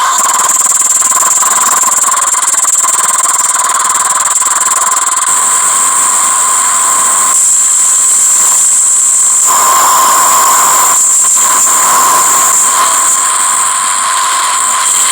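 Loud, harsh electronic noise with two steady high-pitched whistling tones, thinning briefly about halfway through.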